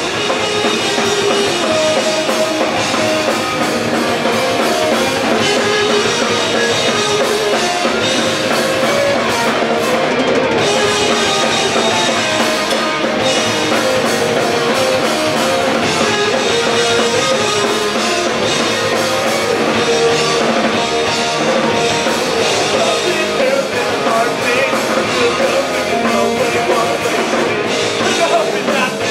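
Live punk rock band playing loud and steady: drum kit driving the song under guitar, with vocals.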